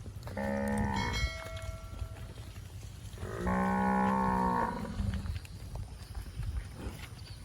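A cow mooing twice: a short call about half a second in, then a longer one of over a second about three seconds in.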